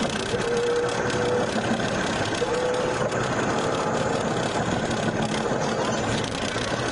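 Car driving at highway speed, heard from inside the cabin: steady engine and road noise. A mid-pitched steady tone comes and goes over it, about a second at a time.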